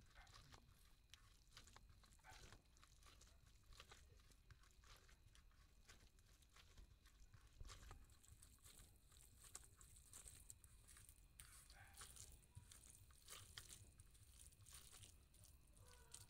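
Very faint, irregular squishing and crackling of a bare hand kneading and mashing cooked lai shak (mustard greens) with mustard oil on a plate.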